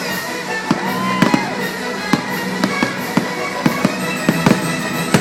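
Fireworks going off in quick succession, a string of sharp pops and bangs, over the fireworks show's music soundtrack.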